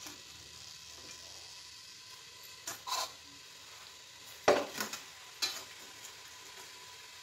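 Sliced onions sizzling in hot mustard oil in a steel pot, a faint steady hiss. A few sharp knocks of a stirring spoon against the pot come about three, four and a half and five and a half seconds in.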